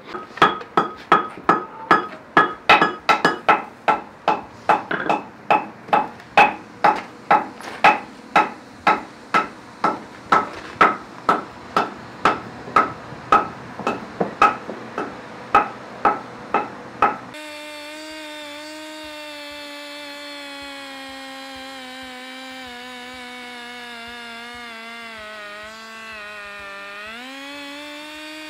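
Ringing hammer blows, about two a second, for the first seventeen seconds. They stop abruptly, and a handheld pneumatic engraving tool takes over on a granite slab with a steady whine. Its pitch sags briefly near the end as it bites into the stone, then recovers.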